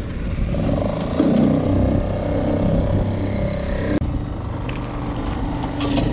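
A small boat's motor running steadily with an even low drone.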